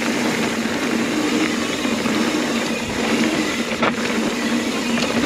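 Mountain bike rolling down a dirt singletrack: steady tyre and riding noise, with one sharp knock nearly four seconds in.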